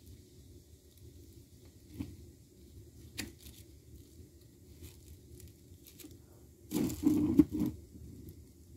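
Handling noise from hands working on an exit sign's wiring: two light clicks, then about a second of louder rubbing and rustling near the end.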